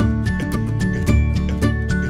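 Background music with a quick, steady beat and plucked notes.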